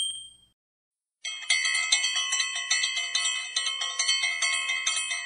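Bright bell-like chimes struck in a steady rhythm, about three strikes a second, starting about a second in after a short silence: a jingle for a share-and-subscribe end card. At the very start, an earlier chime dies away.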